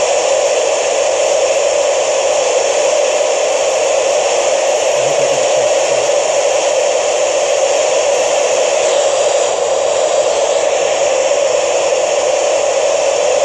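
Ham radio receiver giving a steady hiss of static with no voice on the channel: an open FM receiver with no usable signal coming through from the International Space Station.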